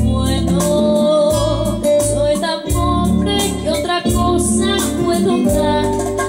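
A woman singing a bolero into a handheld microphone over instrumental backing music with a steady bass line.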